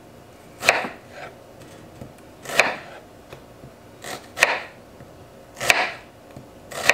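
Chef's knife slicing down through a halved onion and landing on a white plastic cutting board, five slow cuts, one every second or two.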